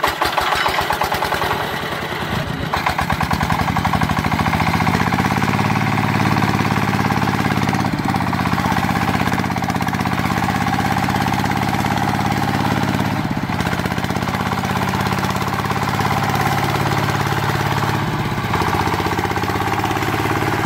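Small engine chugging into life, its pitch rising over the first few seconds as it speeds up, then running steadily while belt-driving a miniature water pump.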